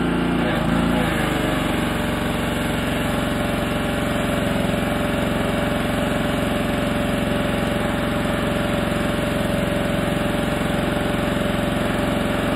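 Gasoline pressure washer's small engine running steadily under load, with the hiss of the water spray, during a rinse through a 40-degree nozzle.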